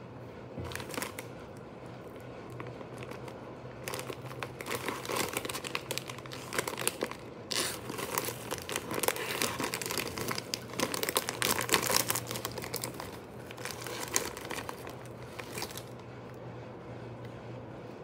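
Thin plastic snack wrapper crinkling as the cookie packet is handled and torn open, loudest in the middle stretch.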